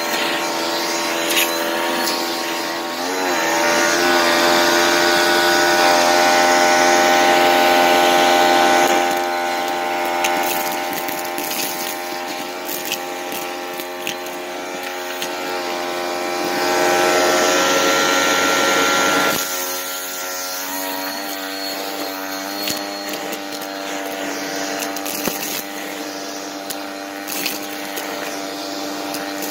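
Vacuum cleaner running with a crevice nozzle on carpet, a steady motor whine, with clicks and rattles of dry pasta, bits of plastic and beads crunching up the hose. The loudness rises for a few seconds twice and drops abruptly about two-thirds through.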